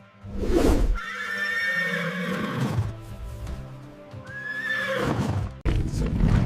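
Horse neighing: two long whinnies, about a second in and again about four seconds in, over background music.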